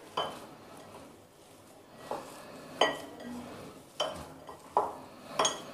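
Glass mixing bowl knocking and clinking about six times at irregular intervals, each knock ringing briefly, as hands knead mashed paneer and potato in it.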